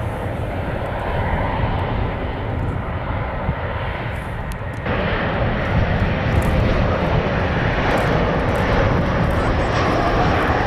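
Jet airliner engines running with a heavy, steady roar and low rumble. About five seconds in, the sound abruptly becomes louder and brighter, and a faint high whine rises in the last few seconds.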